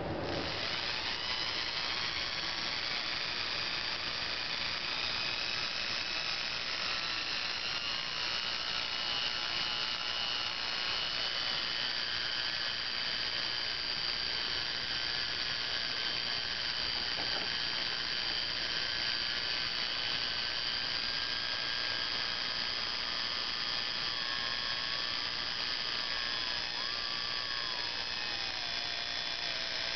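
Small universal brushed motor from a paper shredder running fast on a rising AC supply: a steady high-pitched whine over brush noise, with its brushes sparking at the commutator.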